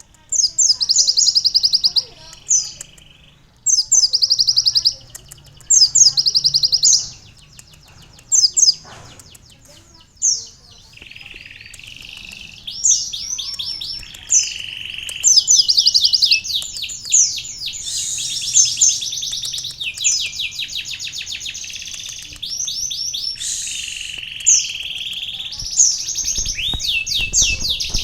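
Kolibri ninja sunbird singing a fast, high trilling song stuffed with canary-style phrases. It sings in bursts of about a second with short gaps at first, then trills almost without a break from about a third of the way in.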